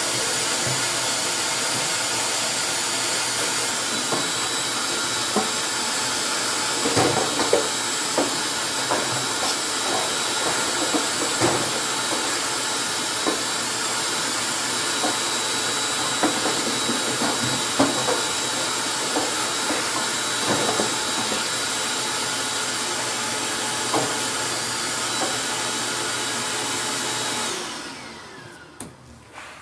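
Vacuum cleaner running steadily with a thin high whine as it sucks lint out of a dryer's blower housing, with scattered knocks and clicks along the way. It is switched off near the end and winds down.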